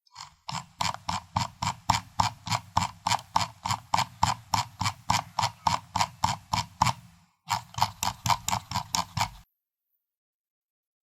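Computer mouse scroll wheel being turned, its notches clicking evenly about four to five times a second. The clicking pauses briefly about seven seconds in, resumes for a couple of seconds, then stops.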